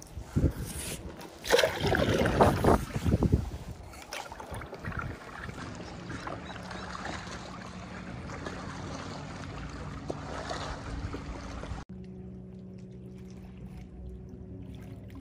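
Paddle strokes splashing water beside an inflatable paddleboard, loudest in the first few seconds, then a quieter steady wash of water with a low hum underneath. Near the end the water sound cuts out abruptly, leaving only the hum.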